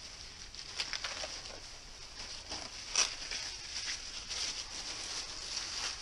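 Thin plastic drop sheeting rustling and crinkling as it is pulled down off the wall by hand, with a sharper crackle about three seconds in.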